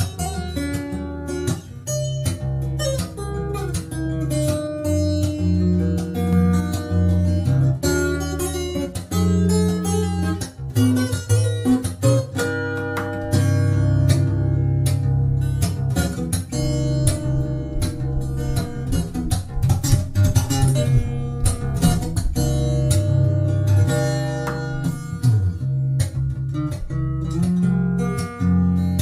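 Yamaha FS800 acoustic guitar played fingerstyle: a plucked melody over a steady bass line picked on the low strings.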